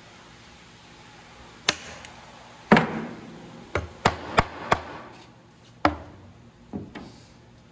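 Hammer blows on a wooden window frame: about nine sharp knocks at uneven intervals, the loudest about three seconds in.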